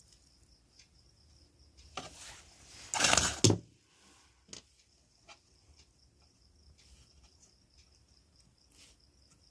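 Bench handling noise during soldering work on a circuit board: scattered light clicks and ticks, with a short scraping burst about three seconds in that is the loudest sound.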